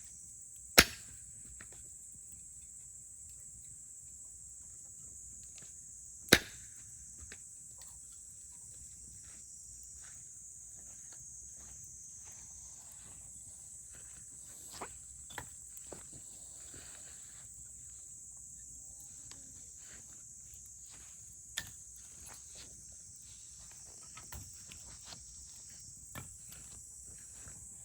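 Wood fire crackling, with a few loud, sharp pops, two of them in the first seven seconds, and scattered smaller snaps. A steady high-pitched hiss runs underneath.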